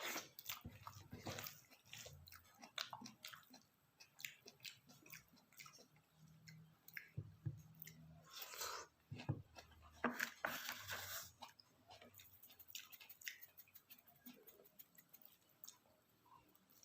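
A person chewing and eating close to the microphone: quiet, irregular wet smacks and mouth clicks, with a louder run of them about halfway through.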